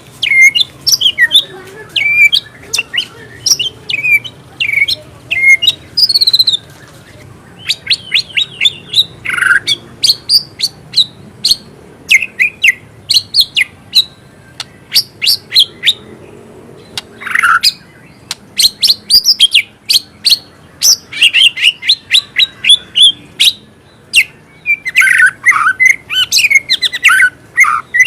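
White-rumped shama (murai batu) singing a long, varied song of quick sharp chirps, rapid trills and short whistles, broken by brief pauses. The song is full of isian, phrases the bird has learned from other species.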